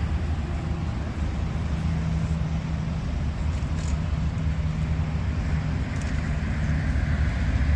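A vehicle engine idling steadily, a low rumble with a faint even hum.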